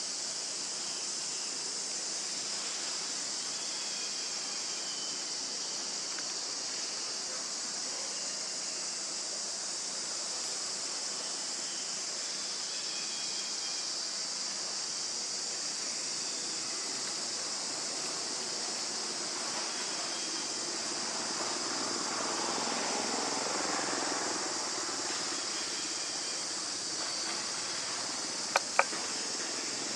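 Steady high-pitched drone of forest insects, with faint short chirps now and then. A broader swell of noise comes about three-quarters through, and two sharp clicks near the end.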